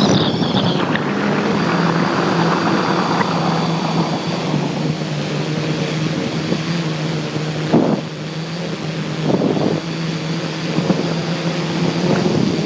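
A tricopter's electric motors and propellers running in flight, a steady hum with a faint high whine, recorded from a phone strapped to the craft. Wind buffets the microphone, in stronger gusts about eight and nine and a half seconds in.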